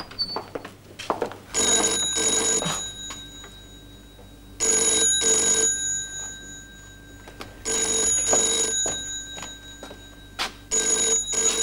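Telephone bell ringing in a double-ring pattern (ring-ring, pause) four times, repeating about every three seconds.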